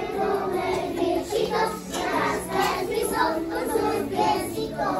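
A group of young children singing together, with music playing behind them.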